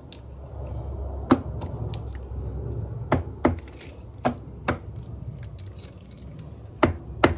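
Sharp clicks and knocks of metal engine parts being handled on a bare motorcycle top end, about seven scattered over the stretch, with the loudest near the start and near the end, over a steady low hum.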